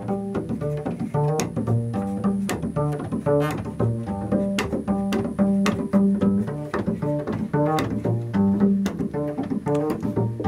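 Upright bass plucked pizzicato in a repeating low riff, with sharp hand-percussion knocks keeping a steady beat over it.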